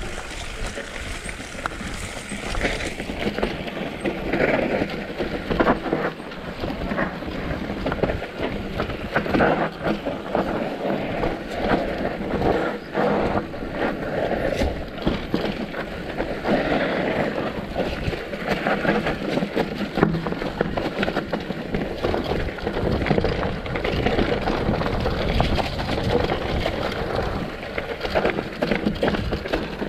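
Mountain bike rolling down a rough dirt trail: a constant rushing of tyres and air, broken by frequent irregular rattles and knocks as the bike jolts over bumps.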